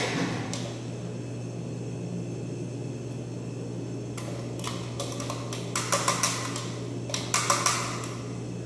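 Glass noodles and a plastic bowl being handled over a wok of boiling stock: a run of short rustling and knocking sounds about halfway through, loudest in two clusters, over a steady low hum.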